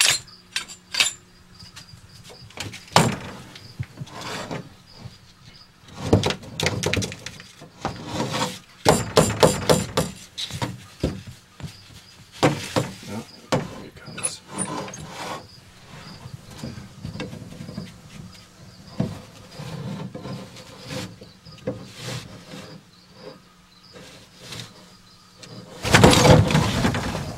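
Handling noises while a dead rat is offered on metal feeding tongs: scattered clicks, knocks and rustles over a steady low hum, with a louder rustling burst near the end.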